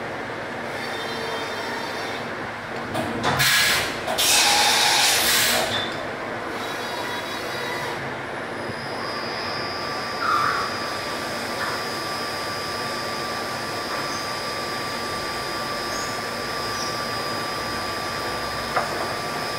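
CNC vertical machining centre milling an ergal aluminium part under flood coolant: a steady cutting noise with a thin high whine running through it. A loud hiss rushes in for about two seconds a few seconds in.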